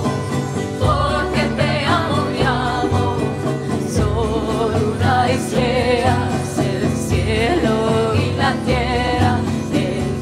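Live acoustic song: a woman's and a man's voices singing over a hand-played djembe and an acoustic guitar, with a steady drum pulse.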